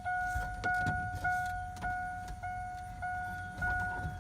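A vehicle's warning chime beeping steadily, about one beep every 0.6 s, as when a door is open or a key is in the ignition, with scattered light clicks of handling.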